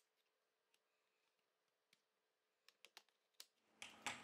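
Near silence, with a few faint, sharp clicks in the second half, more of them near the end, as an opening tool works around the edge of a Huawei Y6P's back cover to release it.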